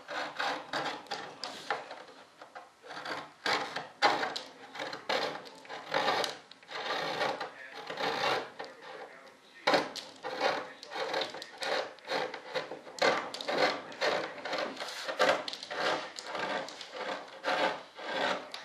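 Hand-sanding along the edge of a freshly molded model jet wing: quick back-and-forth rasping strokes, about two a second, with a short pause about halfway through.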